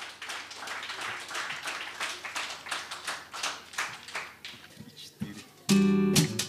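Small audience applauding, the claps thinning out and dying away after about four seconds. Near the end the band comes in loudly with strummed acoustic guitar chords.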